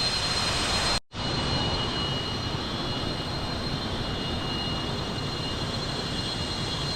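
Cicadas droning steadily in the forest, two high whining tones held without a break, over a steady rushing hiss. The sound drops out briefly about a second in, then resumes.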